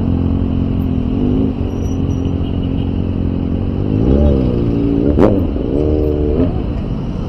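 Motorcycle engines running in slow, congested traffic, with short rises and falls in engine pitch as the throttle is blipped, about four seconds in and again around six seconds. A sharp click sounds a little after five seconds.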